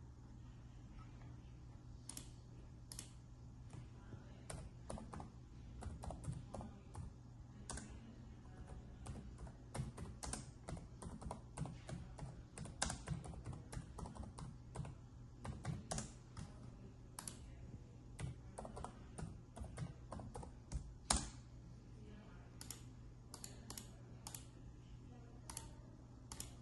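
Typing on a computer keyboard: irregular key clicks in quick runs, with one sharper click about 21 seconds in, over a faint low hum.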